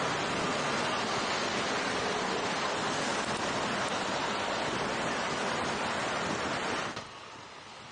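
Wind rushing over the microphone while on the move, a steady loud noise that drops off suddenly near the end.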